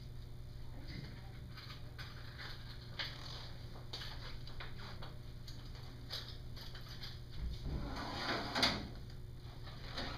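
Rustling and small clicks of a protective shielding apron being handled and fitted around a patient, with a louder rustle and a low thump about eight seconds in. A steady low hum runs underneath.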